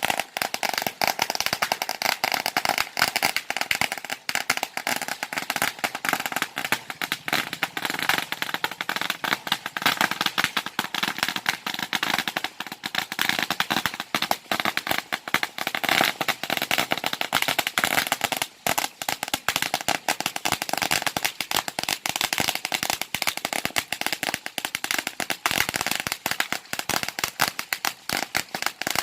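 Long string of firecrackers going off, a dense, unbroken rapid crackle of bangs throughout.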